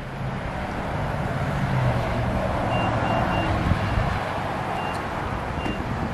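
A vehicle engine running with a steady low rumble under traffic-like noise, and short high electronic beeps: three quick ones about three seconds in, then a few single ones.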